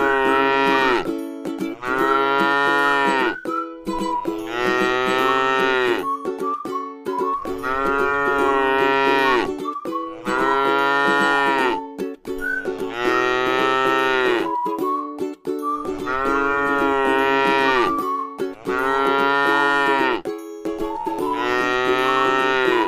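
Cow mooing over and over, a long call about every two to three seconds, over a steady droning tone.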